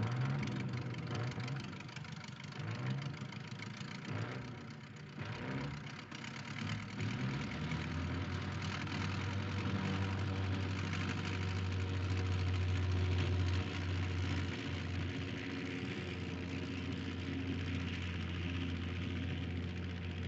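Sound effect of a World War I Sopwith Camel biplane engine starting after the "contact" call. It sputters and runs unevenly for the first several seconds, then about seven seconds in settles into a steady, low drone.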